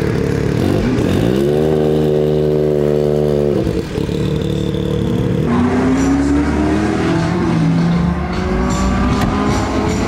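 Racing car engine revved up and held at high revs for about two seconds, then dropped off suddenly. It revs again a second or two later, rising and then falling.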